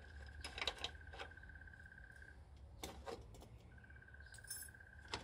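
Light clicks and clinks of the plastic headlight cowl and small metal parts being handled and taken apart, loudest in a cluster about half a second in and again about three seconds in. A steady high thin trill sounds in the background, breaking off for a second or so midway.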